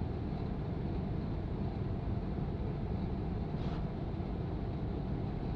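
Gas furnace running with a steady low whoosh and hum from its fans, during the wait for the heating cycle to start up.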